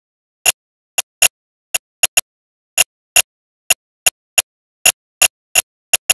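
About sixteen sharp, very short clicks at uneven intervals, with dead silence between them.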